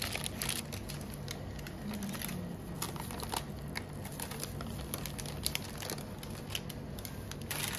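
Baking paper and a plastic glove crinkling and rustling in irregular small crackles as the paper is peeled off the sides of a freshly baked sponge cake.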